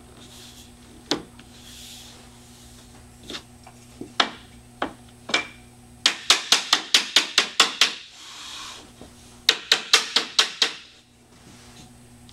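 Sharp knocks on laminate flooring as a plank is tapped with a wooden tapping block to close its interlocking joint: a few scattered single knocks, then a quick run of about a dozen taps about halfway through and another of about eight a little later.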